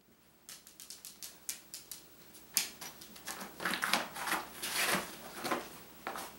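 A small dog moving over a padded nylon bag on the floor: a run of quick clicks and rustles. From about two and a half seconds in they get louder and busier as it climbs up to a person's face.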